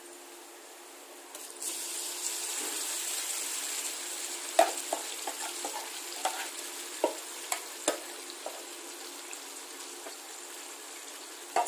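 Yogurt-marinated chicken sizzling as it goes into hot oil and fried onions in a metal kadai. The sizzle starts about one and a half seconds in, and a spoon and spatula tap and scrape against the pan a dozen or so times as the chicken is added and stirred.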